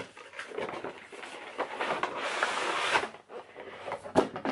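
Packaging of a set of hair-care samples being opened and the small sample bottles lifted out: rustling and rubbing, loudest in the middle, with scattered light clicks and a sharper knock near the end.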